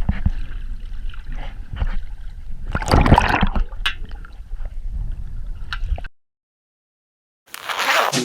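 Water gurgling and splashing, with a louder surge about three seconds in; it cuts off abruptly to silence about six seconds in.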